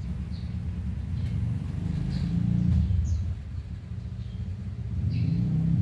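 A low engine rumble, steady but swelling louder about two seconds in and again near the end, with short high chirps of small birds over it.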